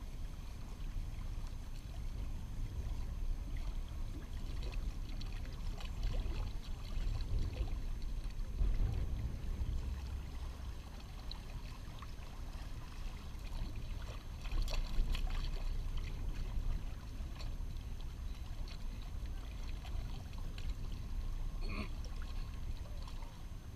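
Strong wind buffeting the microphone as a steady low rumble, with small waves washing against shoreline rocks and a few faint clicks.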